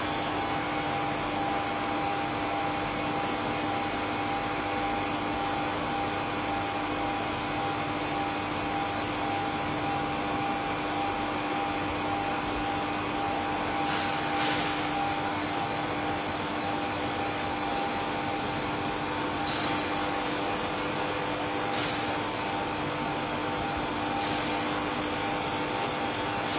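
Mad-scientist electrical laboratory sound effect: a steady electrical hum and buzz, with a few sharp electric crackles in the second half, two of them close together about halfway through.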